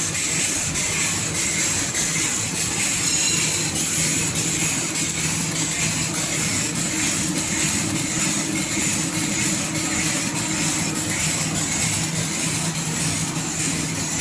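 Automatic tableware packing machine running steadily, with a constant mechanical hum and hiss and a regular light clicking from its moving parts.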